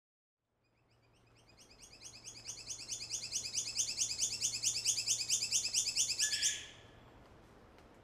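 A rapid train of high chirping notes, about five a second, swelling from faint to loud over several seconds and then stopping abruptly.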